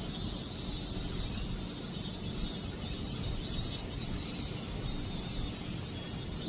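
Cicadas buzzing steadily in a high band, swelling briefly about three and a half seconds in, over a low background rumble.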